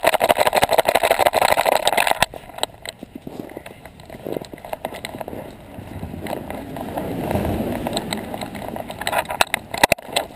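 Fur rubbing and brushing over a GoPro housing strapped loosely to a running dog, with many knocks and scrapes as the camera jostles on its mount. It is densest in the first two seconds, then a rougher rubbing noise with scattered knocks that swells in the middle.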